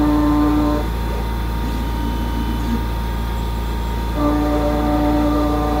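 Pocket NC v2-50 desktop five-axis CNC mill running while it chamfers holes in an aluminium block: a steady whine of several held tones. The whine cuts out about a second in and returns about four seconds in, over a constant low hum.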